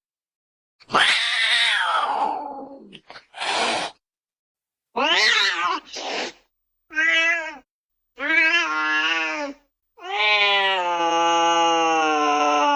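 Cat meowing: about six separate meows with short silent gaps between them, some bending up and down in pitch, ending in one long drawn-out meow of nearly three seconds.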